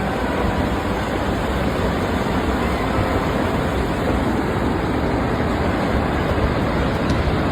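Continuous loud rumbling rush of noise, heaviest in the low end, with no distinct knocks, tones or voices.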